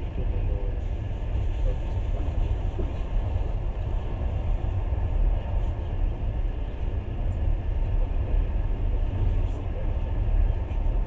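Passenger train running at speed, heard from inside the carriage as a steady low rumble.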